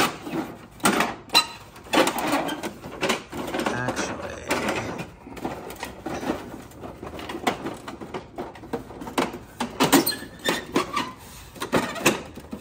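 Hard plastic parts of a vintage G.I. Joe Defiant space shuttle toy being handled: a run of irregular clicks, knocks and scrapes as a hull flap and panel are worked and set down, with a louder knock about ten seconds in.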